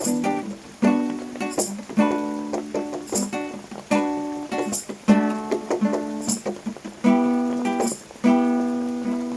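Acoustic string instrument strummed in chords, about one strum a second, each chord ringing and fading before the next.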